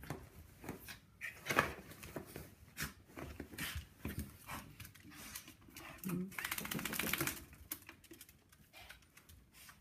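Small dog scrabbling and rustling in a fabric dog bed and on a hardwood floor, with irregular scratches and a fast run of rapid scratching clicks about six seconds in. The owners take the frantic scratching for itchiness.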